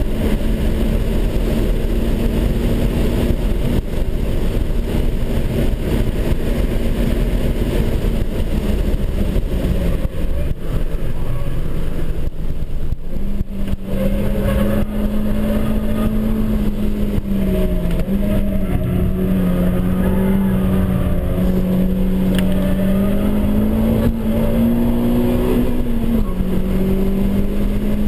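Renaultsport Clio Cup 200 race car's four-cylinder engine running hard at high revs, heard from inside the cabin over heavy road and wind rumble. The engine note wavers with the bends, sagging and climbing again, and drops abruptly near the end.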